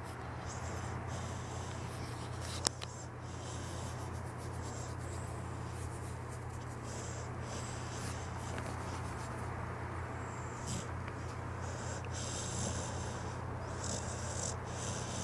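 Pit bull snoring softly in its sleep, over a steady low hum, with one sharp click about three seconds in.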